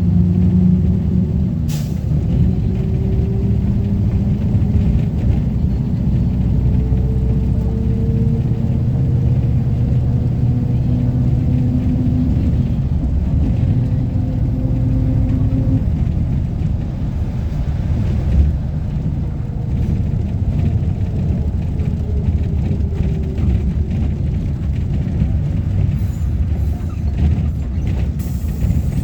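Mercedes-Benz OF-1722M bus under way, its differential howling loudly: a whine that rises steadily in pitch for about fifteen seconds as the bus gains speed, breaks off, then returns falling in pitch as it slows. The OM-924 LA diesel engine rumbles underneath, and a brief hiss comes near the end.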